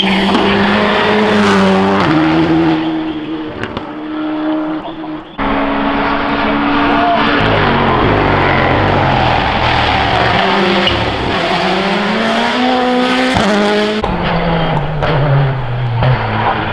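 Turbocharged four-cylinder rally cars, among them a Toyota GR Yaris Rally1, driven flat out: the engines rev high, their pitch climbing and dropping with each gear change. The sound switches abruptly from one car to the next twice.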